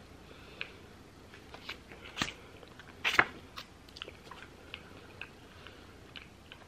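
A person biting into and chewing a blueberry bagel with cream cheese: soft crunches and wet mouth clicks, scattered and irregular, the loudest about three seconds in.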